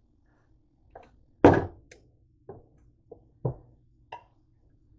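Knocks and clatter from a George Foreman contact grill: the lid opens with a loud clunk about a second and a half in, followed by several lighter knocks and taps as the grilled bread slices are handled.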